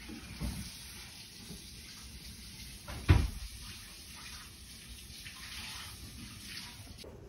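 Quiet kitchen sounds with one sharp knock about three seconds in and a smaller one near the start.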